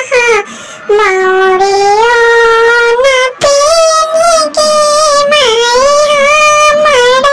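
A high-pitched, cartoon-style voice singing a Bhojpuri wedding farewell song (beti vidai geet) in long, held, wavering notes, with a brief pause about half a second in.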